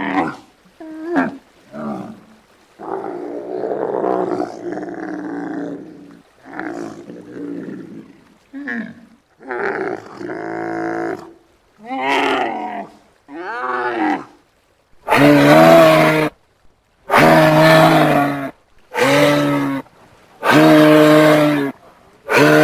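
Giraffe vocalising: a run of short, uneven calls that shift in pitch, then, about two-thirds of the way in, a string of about five loud calls of a second or so each, held at one low, steady pitch with short gaps between them.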